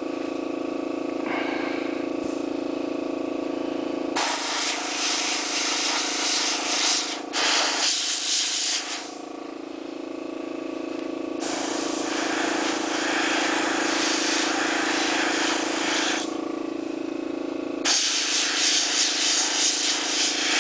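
Airbrush spraying acrylic paint in several spells of hiss a few seconds long, starting and stopping, over the steady hum of the running air compressor.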